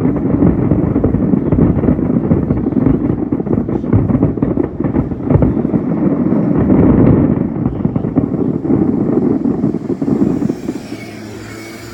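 Fireworks show barrage: many shell bursts in quick succession, overlapping booms and crackling in a continuous dense roll. It dies down about ten and a half seconds in, near the close of the show.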